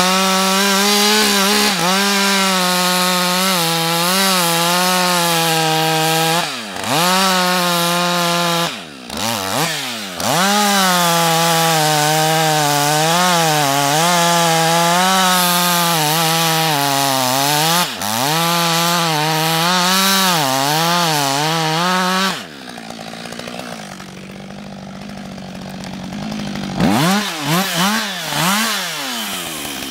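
Husqvarna 562 XP two-stroke chainsaw cutting into a standing tree trunk at high revs, its engine note wavering as the chain loads up and recovers, with a few brief drops in revs. About three-quarters through it falls back to a quieter, lower running, then revs up and down a few times near the end.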